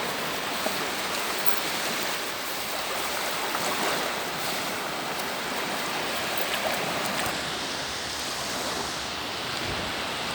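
Calm sea's small waves washing and lapping at the shoreline, a steady hiss of water with no breaks.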